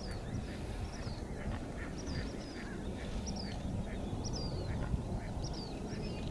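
A bird calling over and over in short, high notes that slide down in pitch, about one a second and often in pairs, over a steady low rumble.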